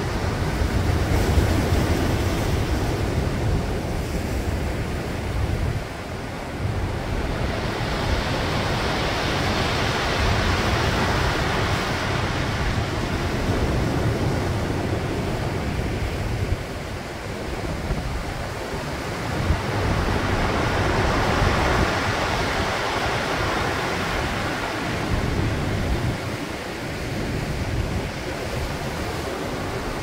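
Heavy typhoon-driven surf breaking on a rocky shore: a continuous loud rush of water that swells and eases as each set of waves comes in, with a deep low rumble underneath.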